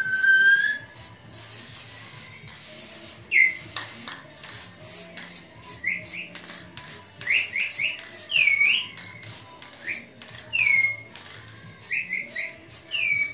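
Aerosol spray-paint can hissing in short bursts, with repeated high, falling whistle-like chirps over it from a few seconds in; the chirps are the loudest sound.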